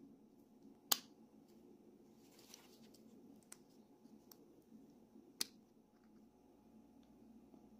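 Small clicks and taps from handling a diecast toy car and a small hand pick: two sharp clicks, about a second in and about five seconds in, with a brief soft scrape and a few faint ticks between, over a low steady hum.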